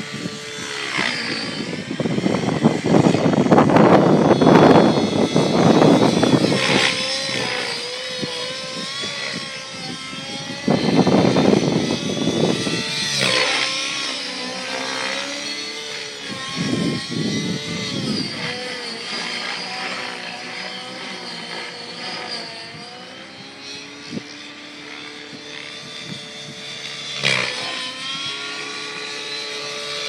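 700-size radio-controlled helicopter flying, its whining drive and rotor note rising and falling in pitch as it maneuvers. Gusts of wind buffet the microphone several times, loudest in the first few seconds.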